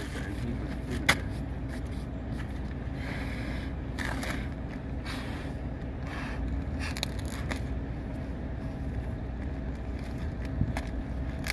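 A vehicle engine running steadily in a low hum, with light scrapes and a sharp tap about a second in from the weld molds being handled against the rail.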